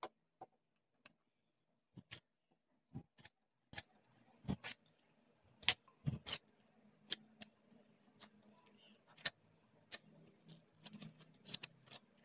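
Hands in thin plastic gloves kneading dough in a bowl: irregular soft clicks and taps with a few dull thuds, coming thicker after about four seconds.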